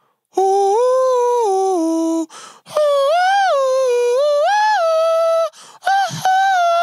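A man humming a wordless tune into a handheld microphone: held notes that step up and down in pitch, in three phrases with short breaks between them.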